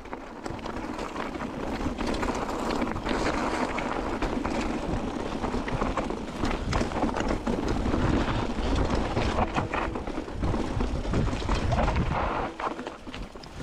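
Wind buffeting the microphone, with irregular footsteps on the trail.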